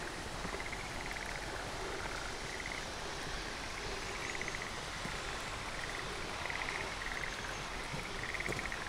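Frogs calling in short trilled bursts, one every second or so and partly overlapping, over a steady hiss of falling rain.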